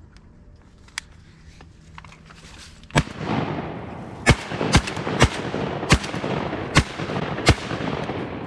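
A volley of shotgun blasts at incoming ducks: seven sharp shots in quick, uneven succession over about four and a half seconds, starting about three seconds in.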